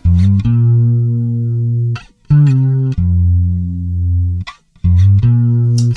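Fretless electric bass played through a chorus effect: four long, sustained notes with short breaks between them, the second sliding up into its pitch about two seconds in.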